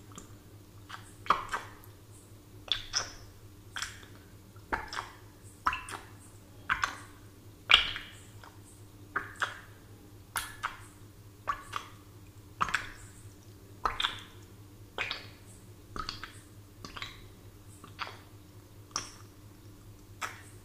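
Bubbles in a glass of water, making short plops about once a second, each rising quickly in pitch.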